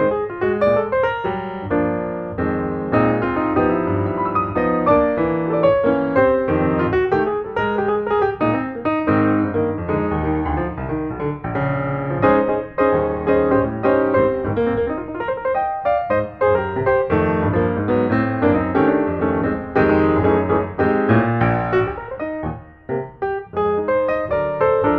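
Background piano music, a steady stream of played notes.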